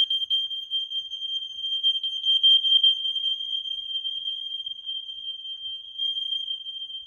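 Smoke alarm's piezo horn sounding one continuous high-pitched tone that wavers in loudness, set off by aerosol test smoke; it cuts off at the end.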